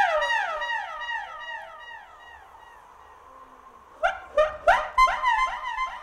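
Baritone saxophone playing a high note that swoops downward again and again, each repeat fainter, dying away over about two seconds. About four seconds in, a string of sharp rising swoops starts and repeats in the same fading way.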